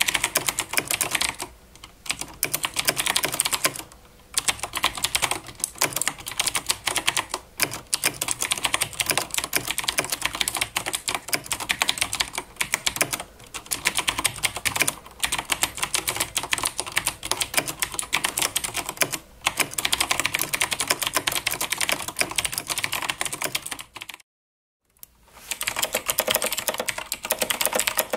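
Fast, continuous typing on a Corsair Strafe RGB mechanical keyboard with clicky Cherry MX Blue switches. After a brief break shortly before the end, fast typing continues on a Razer BlackWidow X Chroma with clicky Razer Green switches.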